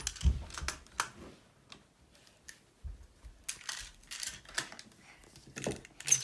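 Plastic magnetic building tiles clicking and clattering as they are handled, snapped together and pulled apart, in an irregular run of short clicks and knocks.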